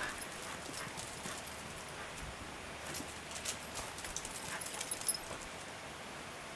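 Shiba inus' paws and claws tapping on concrete as the dogs run, a scatter of light clicks that is busiest about three to five seconds in.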